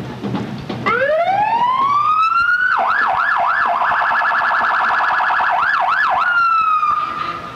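An emergency vehicle's electronic siren: a wail rising for about two seconds, then switching to a yelp and a very rapid warble, then settling on a steady tone that dies away near the end.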